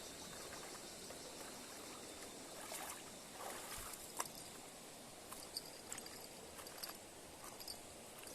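Faint, steady rush of river water, with a few scattered small clicks and taps, the sharpest about four seconds in.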